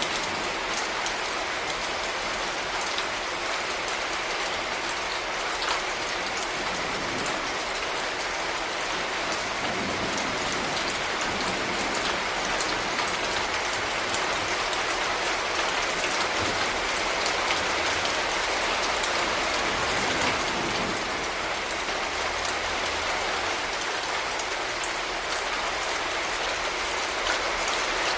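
Steady rain falling on hard urban surfaces, with a dense patter and scattered sharper drop hits.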